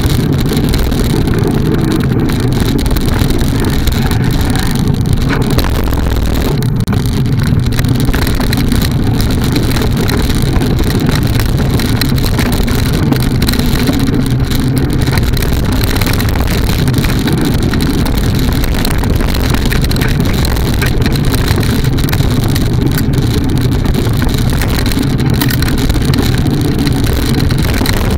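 Steady, loud rumble of wind and vibration on a bike-mounted camera as a mountain bike rolls fast over a rough dirt trail, broken by frequent small knocks and rattles from bumps.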